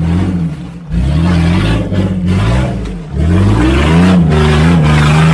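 Off-road 4x4's engine revving hard in repeated throttle bursts, with brief dips about a second in and again about three seconds in. In the last two seconds the revs climb higher and hold.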